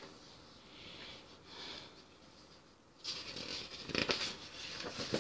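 Faint handling noise, then about three seconds in the loud rustle and flap of a paper picture-book page being turned, sharpest about a second after it starts.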